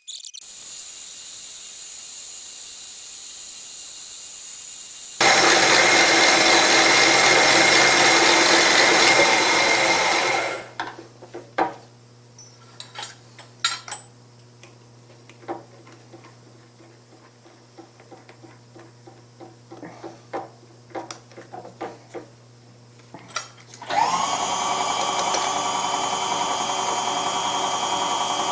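Milling machine spot-drilling holes in metal, deep enough to serve as chamfers for the tapped holes. A loud steady run for several seconds, then a quieter stretch of scattered clicks and knocks under a low hum, and the loud steady run starts again near the end.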